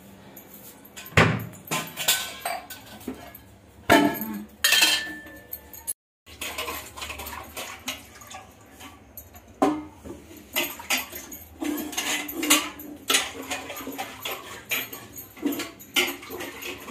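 Steel kitchen utensils clanking and clinking as they are handled and washed by hand in a stainless-steel sink, with irregular sharp knocks of metal on metal.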